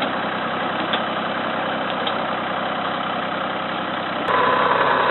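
Tractor engine running steadily. It becomes suddenly louder a little over four seconds in.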